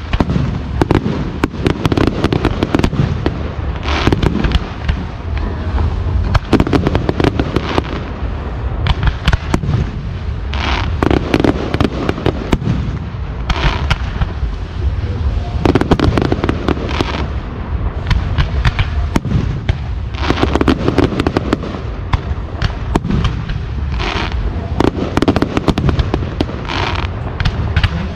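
Fireworks display: aerial shells bursting in a rapid, continuous barrage of bangs and crackling, several reports a second with no pause.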